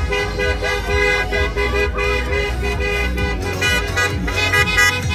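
Several car horns honking at once in long, overlapping blasts.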